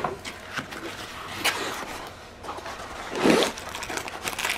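Rolled diamond painting canvas with its glossy plastic cover film being unrolled and handled by hand: plastic rustling and rubbing, with louder scrapes about a second and a half in and just after three seconds.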